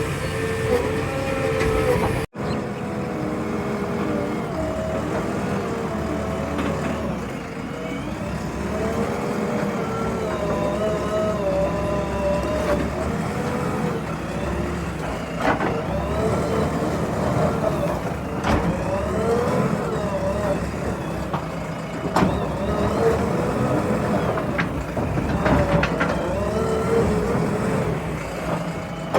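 JCB 3DX backhoe loader's diesel engine running under working load, its pitch rising and falling as the revs change. The sound cuts out for an instant about two seconds in, and there are a few sharp knocks later on.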